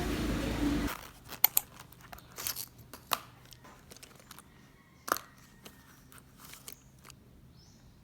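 Scattered sharp clicks and short crinkling, tearing sounds of something being handled in a small quiet room. They start about a second in, when a steady rumbling noise cuts off, and thin out to a few faint ticks near the end.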